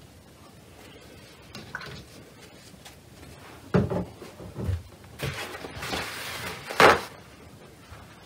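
Knocks and rustling from objects being handled on a tabletop: two dull knocks about four seconds in, some rustling, then a louder sharp clack near the end.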